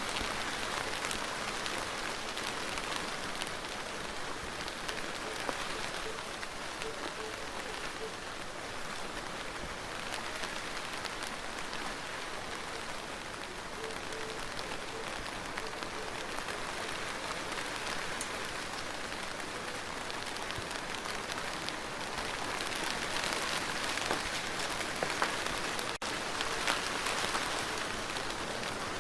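Steady heavy rain falling on a surface, a dense patter of drops with no thunder, swelling slightly louder in the last few seconds.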